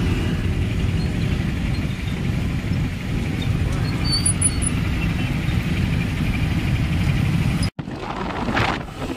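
Road traffic at a junction: a steady low rumble of motorbike and scooter engines running and passing. It breaks off abruptly about three-quarters of the way in.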